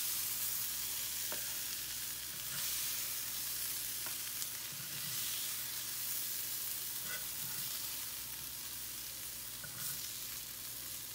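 Seasoned chicken strips and pan drippings sizzling in a hot frying pan while a fork lifts the pieces out, tapping against the pan a few times.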